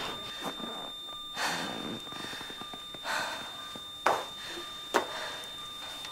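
Resuscitation in a hospital bay: two breathy puffs, then two sharp clicks, over a faint steady high electronic tone.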